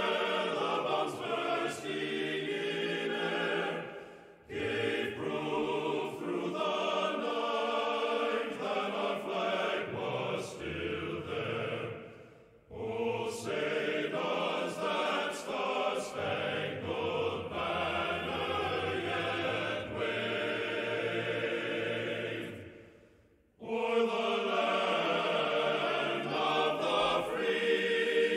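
Choral music: many voices singing sustained notes, fading out briefly and back in about four, twelve and twenty-three seconds in.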